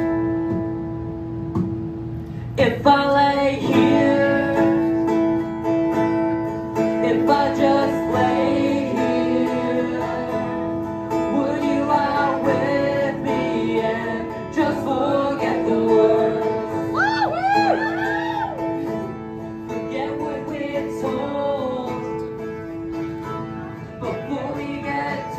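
Acoustic guitar played live while a young man sings into a microphone. His voice wavers in vibrato on held notes about two-thirds of the way through.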